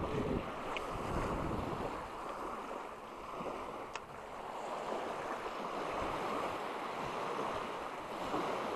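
Small waves washing and breaking on the shore, swelling and easing in a steady hiss, with wind buffeting the microphone now and then.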